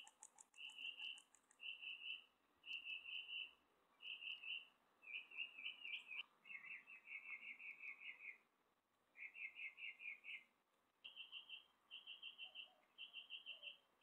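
Faint northern mockingbird song: short trilled phrases, each repeated three or four times before the bird switches to a new one.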